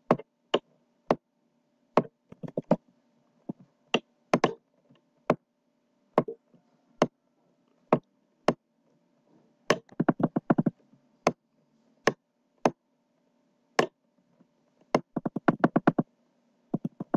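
Computer mouse clicking, sharp single clicks at irregular intervals with two quick runs of rapid clicks, one about ten seconds in and one near the end, over a faint steady hum.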